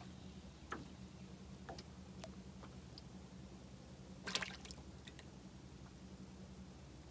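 Small drips and splashes of water lapping against the boat's hull, faint, with a brief cluster of louder splashy clicks a little past four seconds in, over a faint steady low hum.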